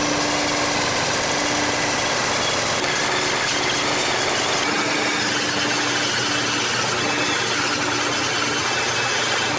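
Table saw running steadily while its blade cuts a wood blank round in a saw-mounted dowel-making jig: a loud, continuous machine noise of blade and wood cutting, with a faint hum that comes and goes.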